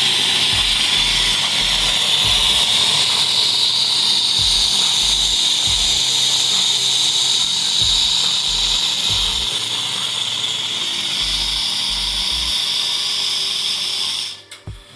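Espresso machine's hot-water outlet dispensing boiling water with a loud, steady hiss that cuts off suddenly near the end.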